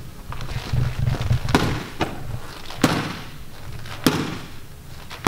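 Left jabs thrown from a stationary stance, smacking into a boxing trainer's pads: sharp single smacks, roughly one a second.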